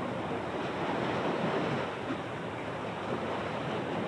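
Steady rushing noise of waves and wind.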